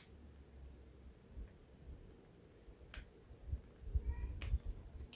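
A Nokia 6225 phone being handled, with two sharp clicks, one about three seconds in and one near the end, over a low rumble.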